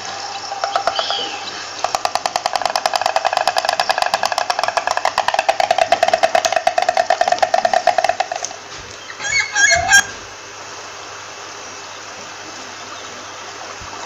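Stork clattering its bill: a rapid, even rattle of knocks that starts about two seconds in and stops after about eight seconds. A short burst of squeaky, gliding calls follows near the tenth second, and then only a faint steady background remains.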